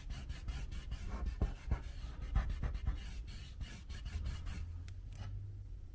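A sticker being peeled from its backing and rubbed down by hand onto a surface: a run of short rustles and scrapes that thins out near the end.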